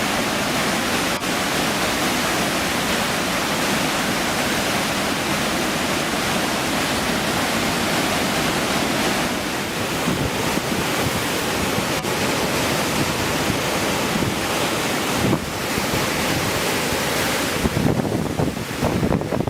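Loud, steady rush of water with wind buffeting the microphone, turning gustier near the end.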